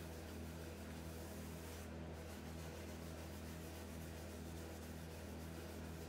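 Faint soft rubbing of a balled-up lint-free rag wiping wipe-on polyurethane along a wooden chair arm, over a steady low hum.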